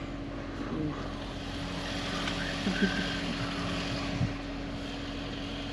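Ford Super Duty pickup's engine running, heard from inside the cab as a steady low hum, with a few light knocks about three and four seconds in.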